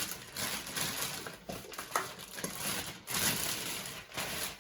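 Packaging rustling and crinkling in uneven bursts, with a few sharp clicks, as the robot vacuum is pulled out of its wrapping.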